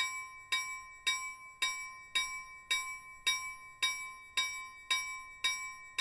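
Japanese railroad crossing warning bell ringing its steady "kan-kan", evenly spaced strikes about twice a second: the signal that a train is coming and the barrier is lowering.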